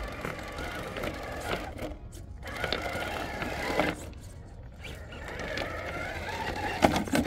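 Electric motor and geared drivetrain of a Vanquish GroundFox RC rock crawler whining in spurts as it climbs over rocks. The whine pauses briefly twice.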